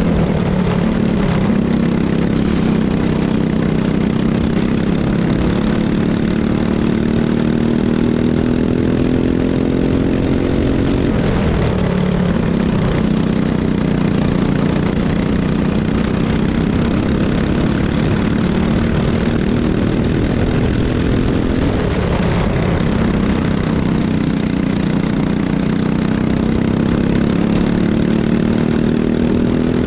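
Racing kart engine running hard, its pitch dropping three times as the kart slows for corners and climbing again as it accelerates away.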